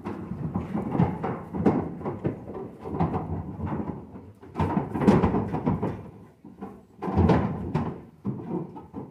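Irregular knocking and clattering in three bursts, the sound of cattle being unloaded from a livestock truck: hooves and bodies striking the truck's floor and sides.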